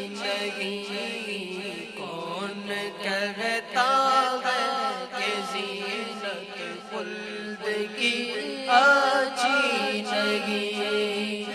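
Naat recitation: boys singing an unaccompanied devotional melody with gliding, ornamented pitch over a steady held drone note.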